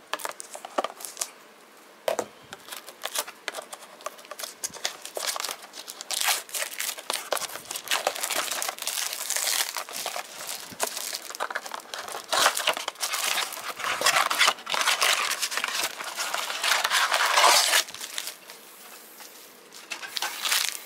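Plastic wrap on a trading-card blaster box being torn and crinkled as the box is unwrapped and opened, with irregular rustling and handling clicks. It is busiest from about six seconds in and eases off near the end.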